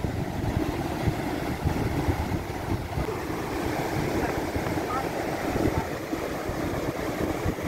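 Sea surf breaking and washing over rocks at the shoreline, with wind buffeting the microphone in a low, uneven rumble.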